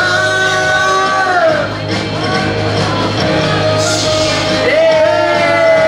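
A stage-musical song: a singing voice holds long notes over backing music with a steady bass. One held note slides down about a second and a half in, and another swoops up near the end.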